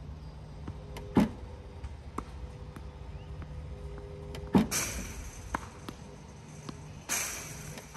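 Tennis Tutor ProLite battery ball machine firing tennis balls with its oscillator running. There are a few loud thumps a couple of seconds apart, some trailing into a short hiss, over a low motor hum, with fainter pops of balls off the racket and court.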